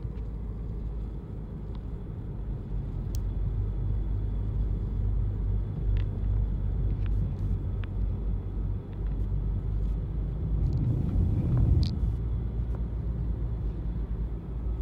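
Car being driven, heard from inside the cabin: a steady low engine and road rumble that swells briefly about three quarters of the way through, with a few faint clicks.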